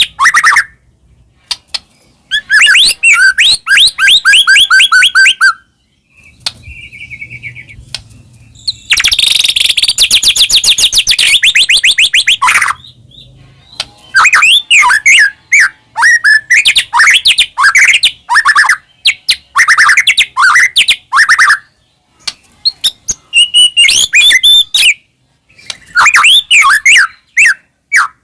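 White-rumped shama (murai batu) singing loudly in a varied song: phrases of fast repeated notes, trills and whistles, broken by short pauses, the loudest being a rapid high trill from about nine to twelve seconds in.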